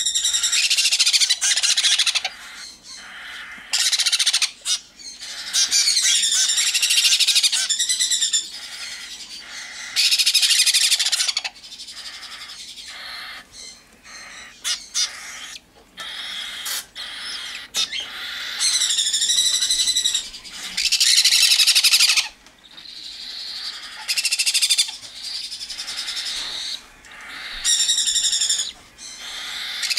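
Hand-fed baby birds begging loudly for formula. High, wavering begging calls come in bursts of about a second or two, repeated every few seconds.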